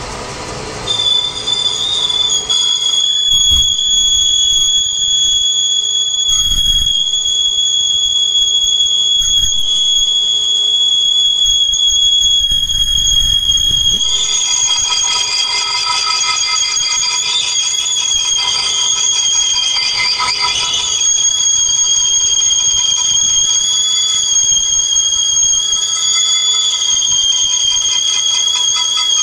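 Lathe cutting tool squealing as it faces a spinning metal disc: a loud, steady high-pitched squeal starts about a second in, and more tones join it about halfway through.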